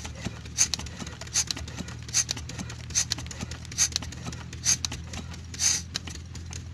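Old 8 hp Kirloskar single-cylinder diesel pump engine being started: a sharp puff or knock about every 0.8 s over a steady low drone.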